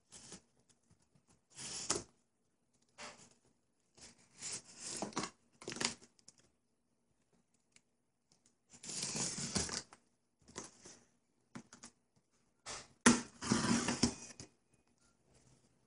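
Cardboard shipping box being cut and its packing tape pulled open by hand: a series of short noisy bursts a second or two apart, the loudest near the end.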